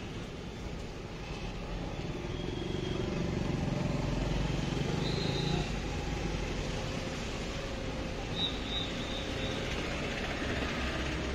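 Engine and road noise of a small taxi heard inside its cabin while driving through town traffic, a steady low rumble that swells a little around the middle. A few brief, faint high-pitched tones sound over it.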